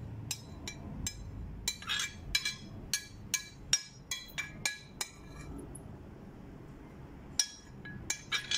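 Light, ringing clinks of kitchenware: a quick irregular series, about three a second, for the first five seconds, then a quieter pause and a few more clinks near the end.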